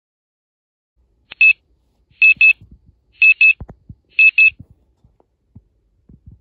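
Electronic alarm beeping: one high beep, then three double beeps about a second apart, with a few soft low thumps between them.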